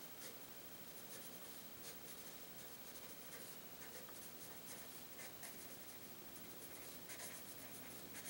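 Pencil writing on paper: faint, short scratching strokes in clusters as a sentence is written out by hand.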